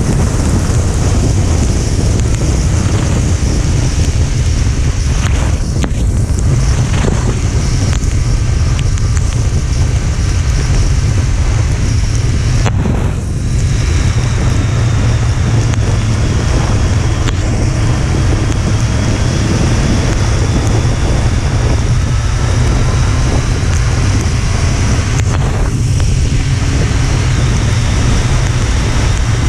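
Wind rumbling and buffeting on the microphone of a motorcycle under way, over the hiss of tyres on a wet road and the faint drone of the engine. The wind noise eases briefly about thirteen seconds in.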